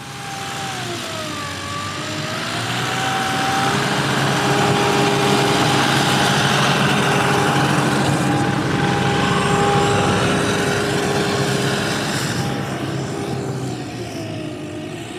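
Sno-Trac snowcat's engine running as the tracked machine drives through deep snow, getting louder as it comes close through the middle and fading as it moves away near the end.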